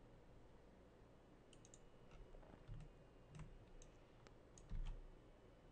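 Faint computer mouse clicks, a scattering of them starting about a second and a half in, with a few soft thumps, over near-silent room tone.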